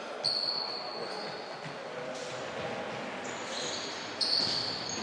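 Sneakers squeaking on a sports-hall court floor, several high squeaks over the hall's background noise.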